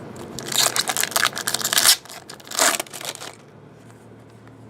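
Foil wrapper of a baseball card pack being torn open and crinkled: a crackling rustle lasting over a second, then a second shorter burst about two and a half seconds in.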